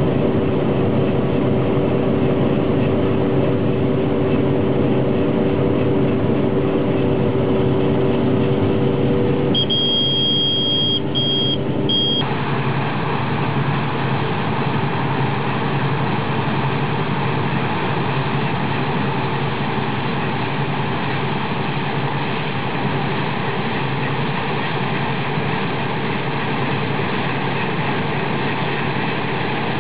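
Claas combine harvester running while cutting wheat. For about the first twelve seconds it is the steady hum heard inside the cab, with a held whine and, near the end of that part, three short high beeps. Then it changes abruptly to the noisier, fuller sound of the combine heard from outside.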